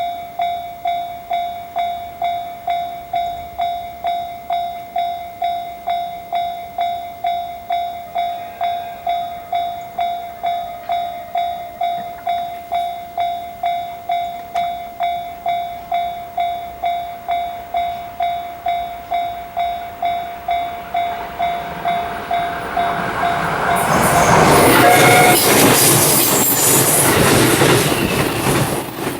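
Japanese level-crossing alarm ringing its electronic bell tone, pulsing about twice a second. After about twenty seconds a Series E353 limited express train approaches and passes at speed, its noise swelling and drowning the alarm near the end.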